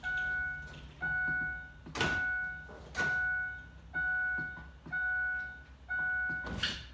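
Lincoln Aviator's warning chime sounding over and over, one even electronic tone about once a second, with a couple of knocks about two and three seconds in.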